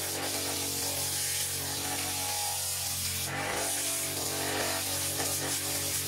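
Washing-machine motor driving a homemade wood lathe with a steady hum, while sandpaper held against the spinning wooden workpiece gives a continuous hissing rub.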